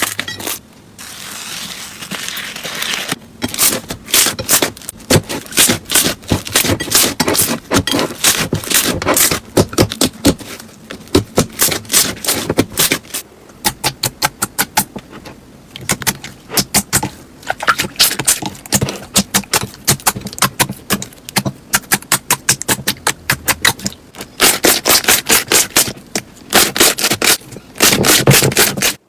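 Slime being squeezed and pressed by hand, giving rapid runs of sharp clicks and crackling pops with short pauses between squeezes.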